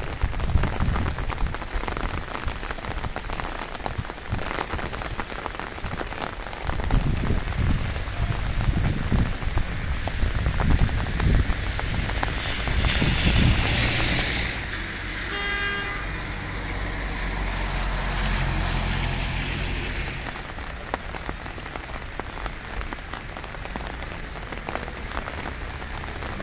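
Rain falling steadily on wet paving, a continuous patter and hiss. About halfway a louder hiss swells and fades, followed by a brief high pitched chirp or beep.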